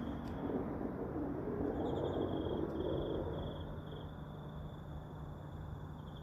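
An unexplained low rumbling noise from the sky, swelling for a couple of seconds and then easing off, the sound that is likened to the heavens roaring. Insects trill steadily on a high note over it.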